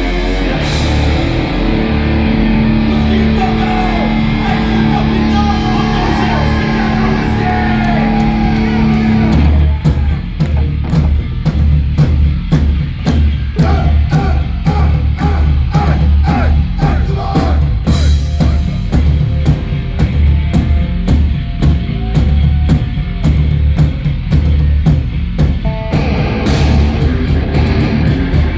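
Heavy rock band playing live with guitars and a drum kit. A long note is held over the first nine seconds or so, then the drums come in with fast, even strikes under the heavy low end.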